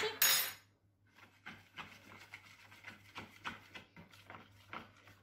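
Metal spoon stirring a thick batter in a plastic bowl, mixing in baking powder: soft, irregular scrapes and clicks, about two or three a second. A short hiss at the very start is the loudest sound.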